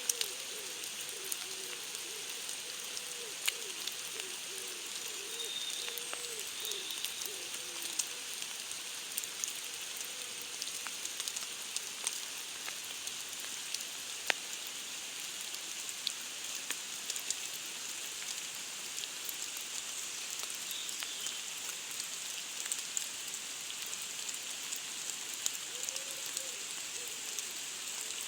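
Steady rain, a dense hiss with individual drops ticking sharply here and there. A faint, wavering low call sounds through the first several seconds and again near the end.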